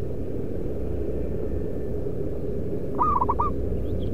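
Zebra dove (perkutut) calling: a quick run of about four short, clear cooing notes about three seconds in, over a steady low rumble.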